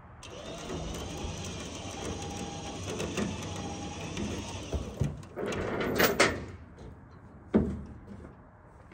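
A steady mechanical whir that cuts in sharply and runs for about five seconds, then a quick run of loud metal clanks and one more clank about a second and a half later.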